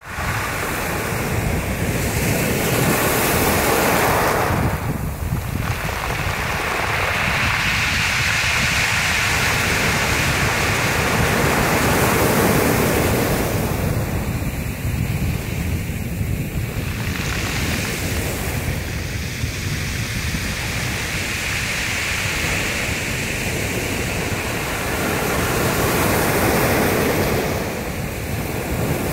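Small waves breaking and washing over a shingle beach of flat, rounded stones. The surf and the jostled stones make a loud, continuous wash that swells and eases every few seconds.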